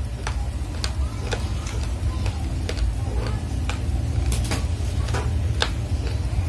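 Raw red rice grains crunching between the teeth as a mouthful is chewed: sharp, irregular cracks about twice a second, over a steady low rumble.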